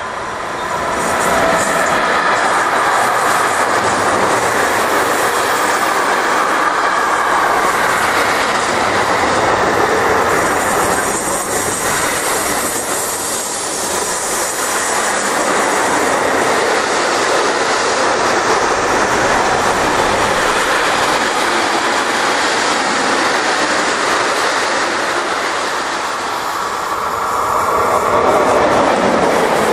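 Container and tank-container wagons of a long freight train rolling past close by: a loud, steady rolling noise of steel wheels on the rails.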